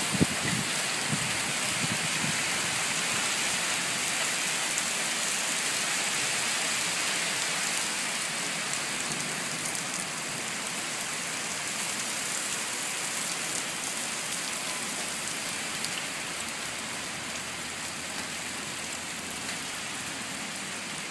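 Hail and heavy rain pelting lawn and pavement in a dense, steady hiss, easing slightly about eight seconds in, as the short hailstorm begins to let up.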